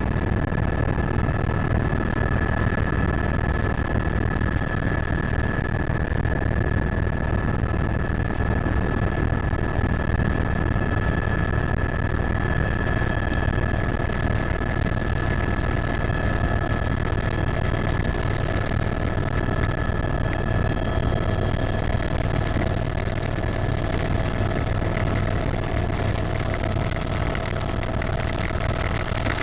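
Helicopter in flight: a steady engine and rotor drone with a constant high whine, and a louder hiss joining about halfway through.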